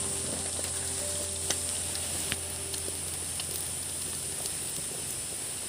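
Steady frying sizzle from a pan on the stove, with a few faint light clicks.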